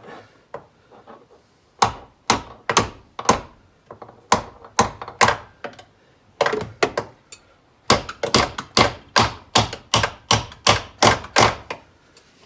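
Hammer blows driving a new hinge pin into a Fox-body Mustang's door hinge: a long series of sharp strikes in short runs, quickening to about three a second in the second half as the pin goes home.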